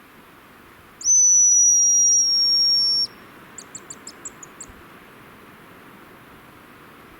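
Hazel grouse call blown on a hunter's decoy whistle: one long, loud, high whistle of about two seconds that falls slightly, then a quick run of about eight short high pips.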